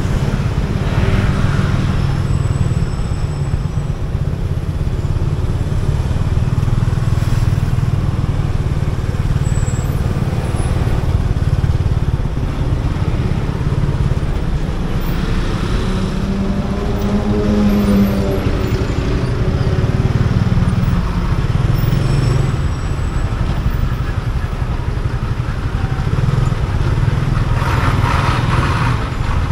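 Motorcycle riding through city traffic: a steady, low engine and road rumble, with a short pitched sound a little past halfway.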